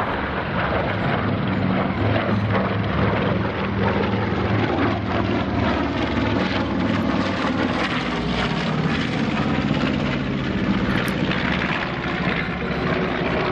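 A B-25 Mitchell's twin Wright R-2600 radial piston engines and propellers making a loud, steady drone as the bomber flies a low pass.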